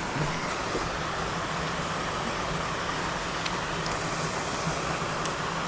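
Steady rush of flowing creek water, an even hiss with a few faint ticks.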